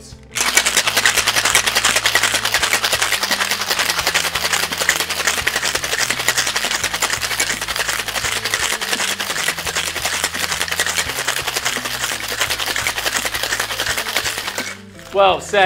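Ice rattling hard inside a sealed two-piece metal cocktail shaker tin as it is shaken vigorously, chilling and diluting a shaken cocktail. The rapid clatter starts about half a second in and stops about a second before the end.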